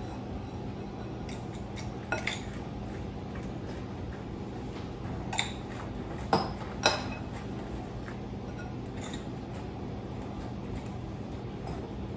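A metal spoon clinking and tapping against a metal mini muffin tin and a mixing bowl as graham cracker crumbs are spooned into the cups: a handful of light clinks, the two loudest close together about six and seven seconds in.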